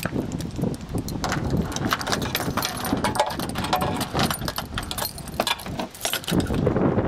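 Wind buffeting the microphone, with footsteps crunching on gravel and many crackling clicks throughout.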